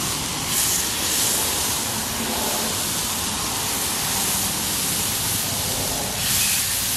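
Whiting fillets sizzling on a hot, oiled Blackstone griddle as more are laid down, the sizzle surging briefly about half a second in and again near the end. Under it runs a steady rush of highway traffic.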